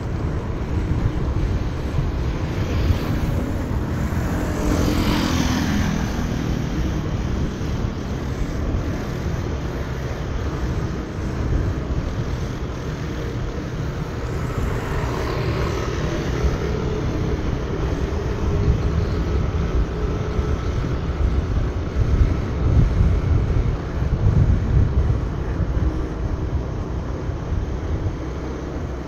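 A motorbike ridden on a mountain road: a steady low rumble of engine, tyres and wind. The pitch sweeps audibly twice, about five seconds in and again around fifteen seconds.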